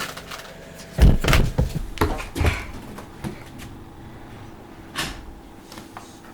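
A series of knocks and bumps, loudest about a second in, with several more over the next few seconds, then a faint steady hum.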